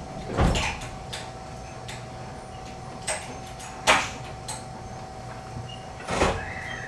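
Interior of a JR 223 series electric train standing at a station: a steady electrical whine with a few sharp clunks and a short hiss of equipment, about four in all.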